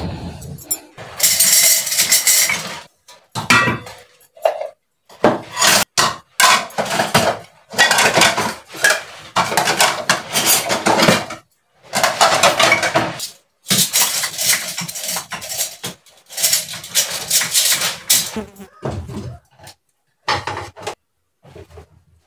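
Dishes and pans clattering and clinking as they are handled and stacked into a plastic dish rack, in a string of short bursts.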